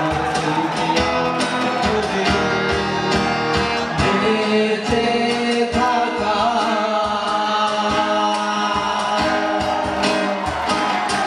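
Live acoustic band: singing over two strummed acoustic guitars, with a cajón keeping the beat.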